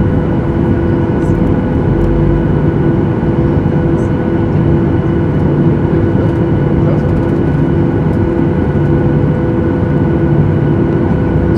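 Cabin noise inside a Boeing 737-800 while it taxis: the CFM56 jet engines run at low power with a steady hum and several constant tones, and a lower tone swells and fades every second or two.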